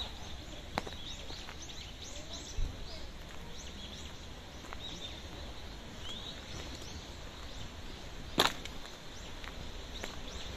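Small birds chirping and twittering, many short rising and falling calls throughout, over a low rumble. A sharp click about eight seconds in is the loudest sound, with a softer click about a second in and a dull thump a few seconds in.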